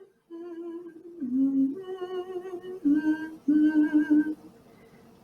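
A woman humming a slow tune, held notes rising and falling, which stops shortly before the end.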